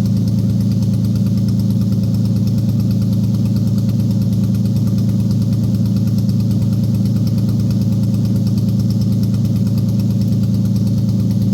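Toyota 1GZ-FE V12 engine idling: a steady, even hum that holds at one speed throughout.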